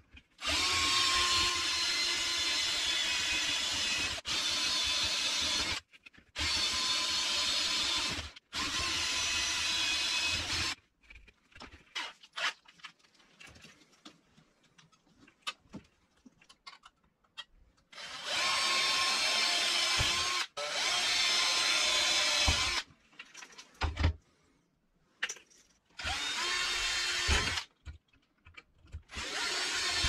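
Bosch 12 V cordless drill running in repeated bursts of two to four seconds, drilling into orange PVC pipe, with a steady motor whine. In the middle there is a stretch of a few seconds with only clicks and handling noises.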